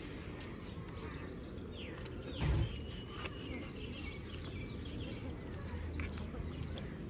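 Birds chirping over a steady low background rumble, with one short low thump about two and a half seconds in.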